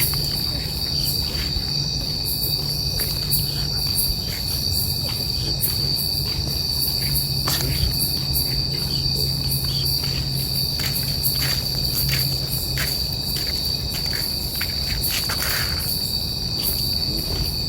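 Crickets and other night insects calling together: a steady high trill with many short, quick chirps over it. A low steady hum runs underneath.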